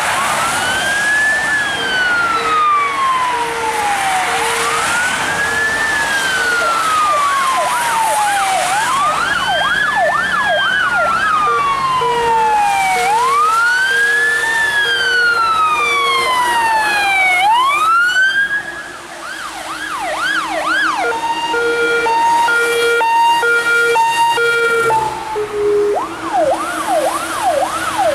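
Fire engine sirens on an emergency run. A wail rises quickly and falls slowly, about every four seconds, and a second siren yelps fast over it. Short repeated horn blasts sound in bursts. Near the end the wail stops and only the fast yelp and the horn pulses remain.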